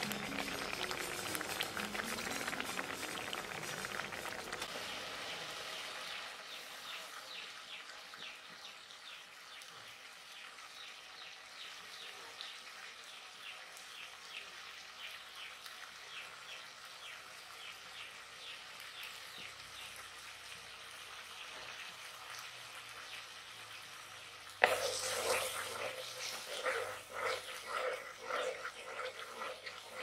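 Thick rose apple jam simmering in a clay pot, its bubbles popping as many small faint ticks. About 25 seconds in, a sudden much louder, uneven sound starts and keeps coming and going.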